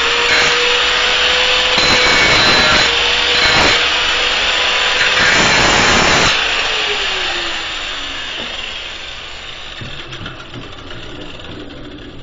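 Drill Master 4-1/2 in. angle grinder grinding the end of a damaged bolt round: a steady motor whine under harsh grinding noise. About six seconds in the grinding stops and the whine falls in pitch as the motor winds down.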